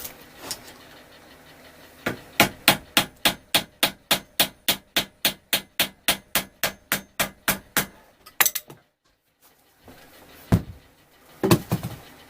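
A hammer gently tapping a part on during motorcycle assembly, standing in for the proper installation tool: a steady run of light taps, about four a second for some six seconds, then a pause and a few separate knocks near the end.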